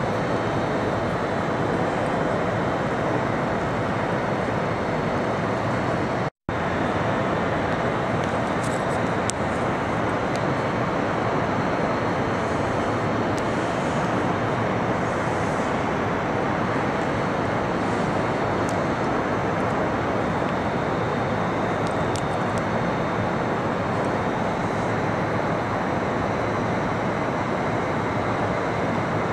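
Steady city traffic noise, an even rumble with no distinct events. The sound cuts out for an instant about six seconds in.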